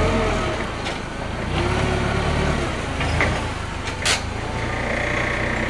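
Forklift engine running as it maneuvers, with a brief sharp noise about four seconds in and a steady high whine coming in near the end.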